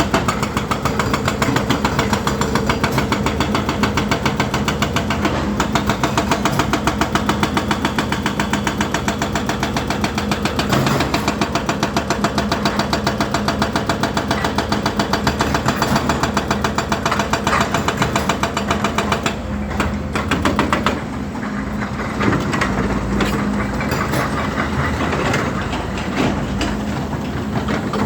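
Volvo EC210D excavator's diesel engine running, with a fast regular pulsing of about four to five beats a second over a steady hum. About two-thirds of the way through the pulsing softens and the sound gets a little duller and quieter.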